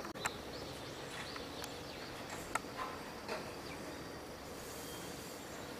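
Outdoor background noise with a faint, steady high tone, a few short high chirps and a handful of sharp clicks, the loudest one just after the start and another about two and a half seconds in.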